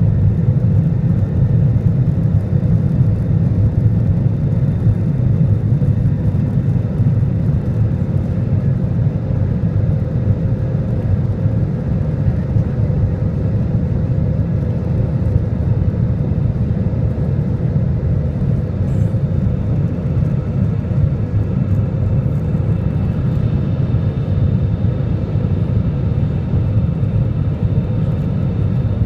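Airbus A320 jet engines and rushing air heard from inside the cabin during the climb after takeoff: a steady low roar with a faint steady hum above it.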